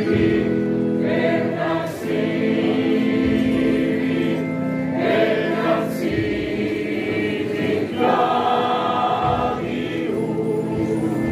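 Male choir singing, long held notes with brief breaks between phrases.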